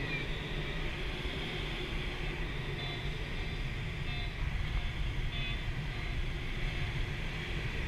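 Steady rush of air over an ASK 13 glider's canopy and airframe heard inside the cockpit, with a low rumble of wind buffeting. The audio variometer's wavering tone cuts off just at the start.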